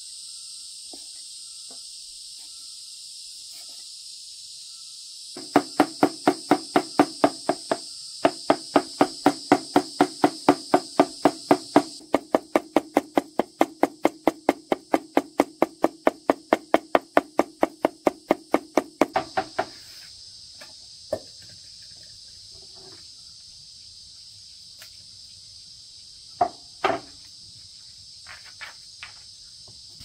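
Steady high insect drone. A run of rhythmic strikes, about four a second, starts about five seconds in and stops about twenty seconds in, and a few single knocks follow near the end.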